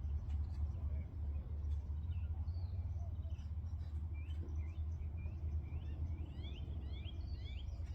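Small birds chirping and twittering, with a run of quick rising chirps near the end, over a steady low rumble.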